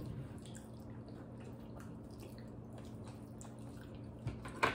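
Faint wet mouth sounds and small clicks of people eating and chewing steak, over a steady low hum, with a couple of short louder sounds near the end.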